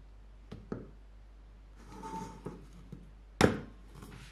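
Lid of a Schmidbauer stainless steel travel mug being handled: two light clicks, a short scraping rustle near the middle, then a sharp snap about three and a half seconds in as the lid's flip-up drinking tab is opened.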